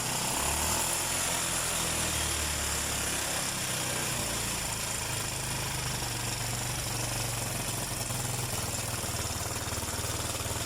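Small vehicle engine idling steadily, running again after a wiring fault that kept it from starting was repaired.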